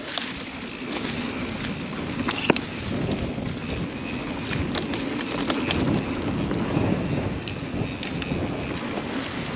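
Mountain bike being ridden along a dirt singletrack: the tyres roll steadily over dirt and rock, with wind on the microphone. Scattered sharp clicks and rattles from the bike run through it, with one louder knock about two and a half seconds in.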